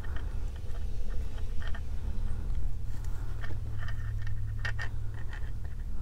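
Faint scratching and light clicks of fingers tying waxed linen cord under a metal jump ring on a beaded bracelet, over a steady low hum; a few clicks come close together about three quarters of the way in.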